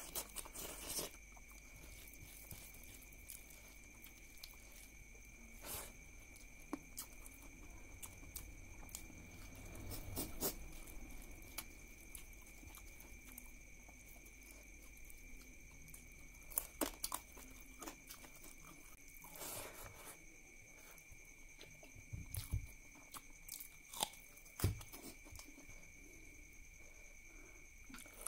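A person eating curry and rice by hand: chewing and wet mouth smacks, with scattered sharp clicks and soft squelches of fingers working the rice. A faint steady high tone runs underneath.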